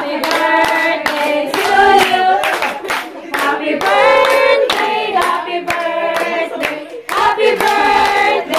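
A group of people singing together and clapping in time, about three claps a second.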